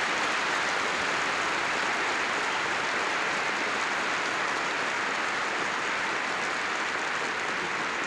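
Crowd applauding steadily after a point is won, the clapping easing off slightly toward the end.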